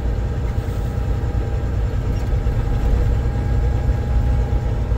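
Semi-truck's diesel engine running at a steady low rumble while driving through town, heard from inside the cab.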